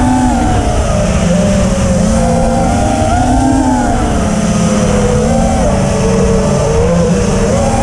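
Brushless motors and propellers of a 250-size FPV freestyle quadcopter (EMAX RSII 2206 2700KV) whining in flight, the pitch rising and falling with the throttle, over a steady rough rushing noise.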